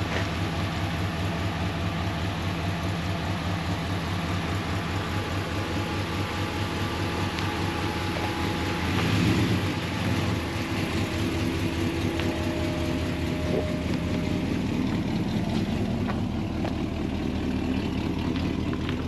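A vehicle engine running steadily, with a slight swell about nine seconds in.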